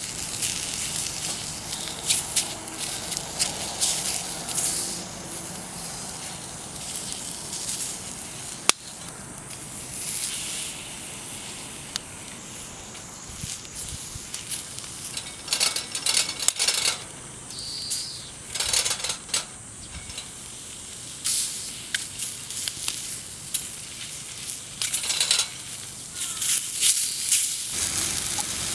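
Food sizzling in a pan over a campfire, with irregular bursts of scraping and stirring from a utensil and one sharp click about nine seconds in.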